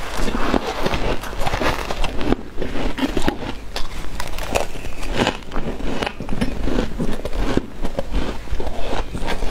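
Freezer frost crunching: a metal spoon scooping through a tub of loose frost, and mouthfuls of the frost being bitten and chewed, in a dense, uneven run of short crunches.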